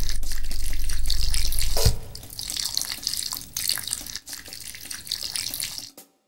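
A steady stream of liquid splashing into toilet bowl water, the sound of someone urinating, with a low hum under it for the first two seconds. The stream cuts off suddenly near the end.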